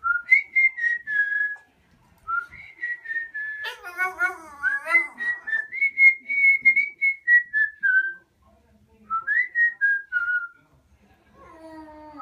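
A person whistling a tune in short phrases of clear, steady notes, while a small dog howls along. It gives one wavering howl about four seconds in and starts another near the end.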